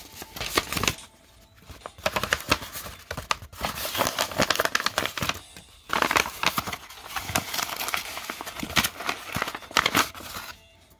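Card packaging crinkling and rustling in hand as a trading card is unwrapped, with irregular crackles and a couple of short pauses.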